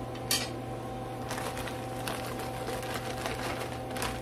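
Frozen broccoli florets going into a hot, oiled pan and crackling irregularly, with one sharp clack shortly after the start. A steady low hum runs underneath.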